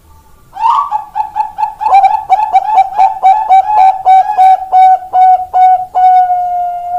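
Bangkok-bred zebra dove (perkutut) singing its cooing song: a quick run of coos, then a steady series of about three clipped coos a second, ending in one long held coo near the end.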